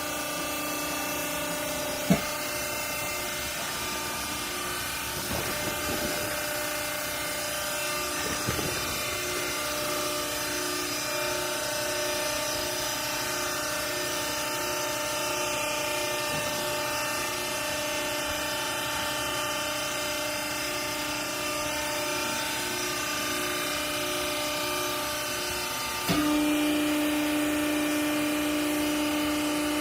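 Hydraulic clothing baler's electric motor and pump running with a steady hum. A sharp click comes about two seconds in. Near the end the hum steps up louder, with one tone standing out.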